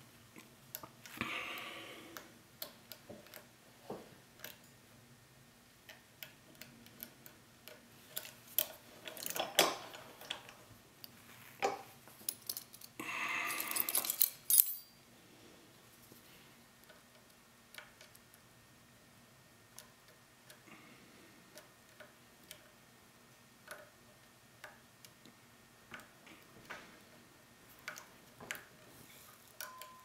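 Metal lock pick clicking and scraping inside the keyway of a Rav Bariach padlock during single-pin picking: scattered small ticks with a few louder rattling, scraping stretches, the longest about 13 seconds in.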